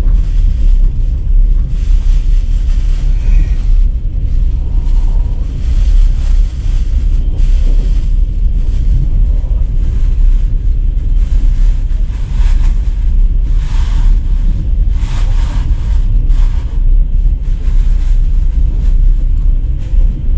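Steady low rumble of a moving vehicle, with wind buffeting the microphone in irregular gusts.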